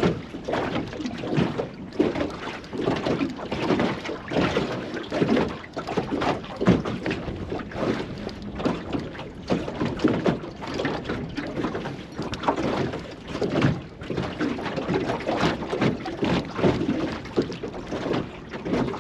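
Choppy water slapping irregularly against the hull of a small drifting boat, with gusty wind buffeting the microphone.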